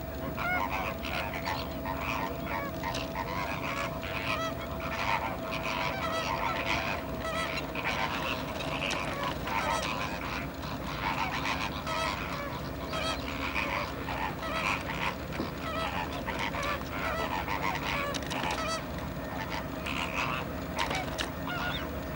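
Large flock of flamingos calling together, a dense chorus of short goose-like honks overlapping without pause. A thin steady tone runs beneath for much of it.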